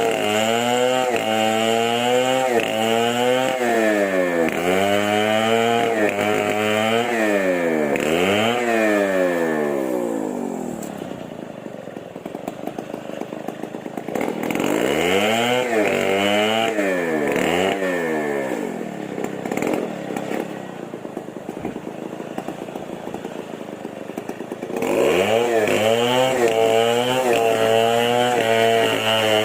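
Chainsaw engine revved hard, its pitch dipping and climbing again and again. It falls back to a lower, quieter run twice in the middle, then opens up suddenly to a steady high rev near the end.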